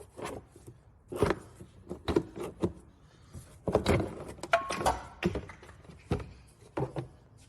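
Plastic engine cover being pulled off and handled: a series of irregular clicks, knocks and rattles, with a brief squeak about halfway through.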